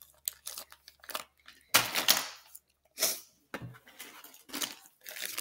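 Clear plastic zip-top bag of soft-plastic fishing baits being handled and sealed: a run of small clicks and crinkles, with louder rustling bursts about two and three seconds in.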